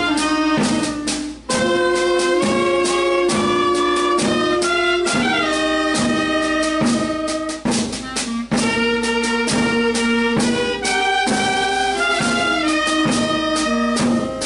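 Small wind band of clarinets and saxophone, with a bass drum beating time, playing a lyrical tune in long held notes. The band breaks briefly about a second and a half in.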